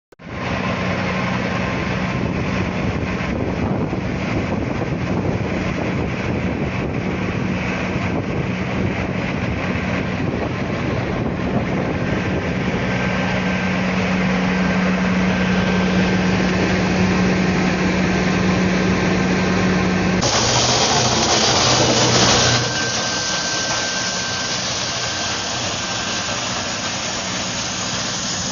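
Wood chipper running with a steady mechanical hum over a wide rushing noise. About twenty seconds in, a louder, harsher rush lasts roughly two seconds while the hum drops lower, then the steady running resumes.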